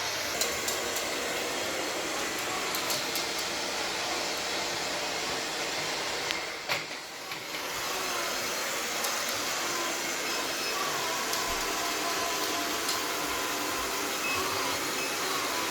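Robot vacuum cleaner running with a steady hiss and scattered light clicks; the sound drops briefly about seven seconds in, just after a knock.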